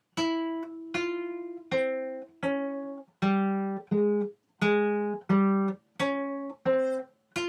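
Classical guitar playing single plucked notes one at a time, about one every 0.7 s: a slow fifth-position finger-independence exercise picking frets 5 and 6 on the second, third and fourth strings in turn. The notes step down in pitch through the middle and climb back up near the end.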